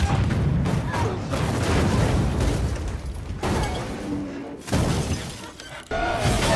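Action-scene sound effects of a car crashing and glass shattering as it flips through the air, over music, with a few abrupt cuts in the mix.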